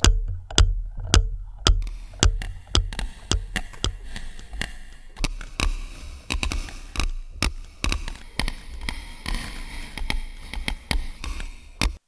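Metronome clicks, about two a second at first, then joined by more clicks at uneven spacing over a low hum and faint hiss. The ticking is being sampled and replayed by a Eurorack sampler/looper module, the Holocene Electronics Non-Linear Memory Machine.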